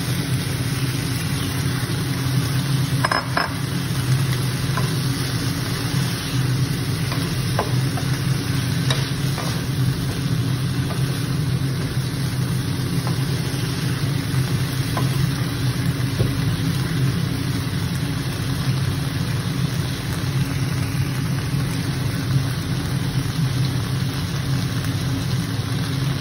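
Mushrooms and bell peppers sizzling as they fry in a pan, stirred with a wooden spatula that clicks against the pan a few times, over a steady low hum.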